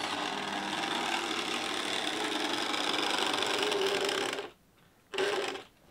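Airfix OO gauge model Class 31 diesel locomotive running round the track with a steady loud motor whirr. The whirr cuts off suddenly about four and a half seconds in.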